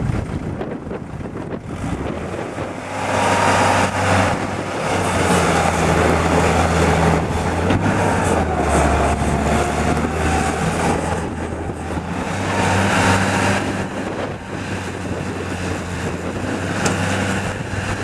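Bobcat S175 skid steer's diesel engine running, getting louder about three seconds in and then rising and falling as the machine is worked.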